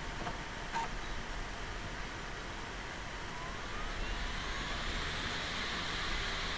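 Slimtype DVD writer drive spinning up as a disc burn begins, a whine rising in pitch from about halfway through over a steady hiss. A click about a second in.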